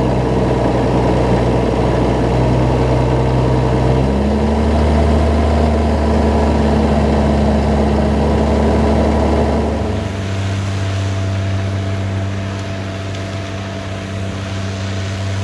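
New Holland T7060's six-cylinder turbo diesel engine running steadily under ploughing. Its note changes abruptly about four seconds in and again around ten seconds in, after which it is a little quieter.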